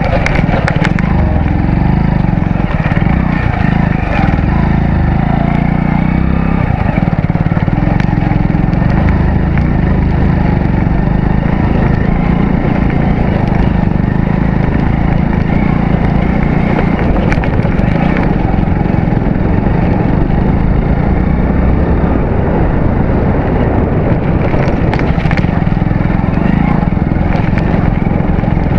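Hero Splendor Plus BS6 motorcycle being ridden at a steady pace, its 97cc single-cylinder four-stroke engine running continuously along with road noise.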